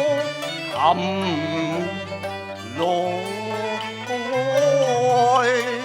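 Cantonese opera (yueqiu) singing: a voice drawing out sung syllables with wavering, ornamented pitch over steady instrumental accompaniment.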